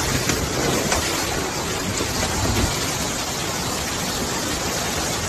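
Heavy rain pouring down, a steady, loud hiss.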